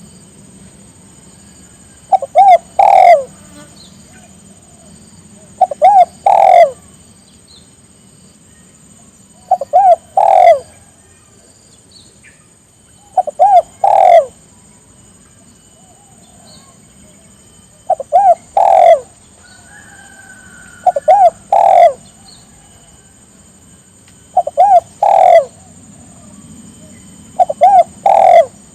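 Spotted dove cooing, its phrase repeated eight times at intervals of about three to four seconds. Each phrase is two short notes followed by a longer coo.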